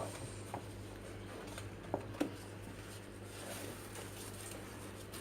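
Faint rustling and a few soft taps of thin warqa pastry sheets being handled and laid into an oiled baking tray, the clearest taps about two seconds in, over a steady low hum.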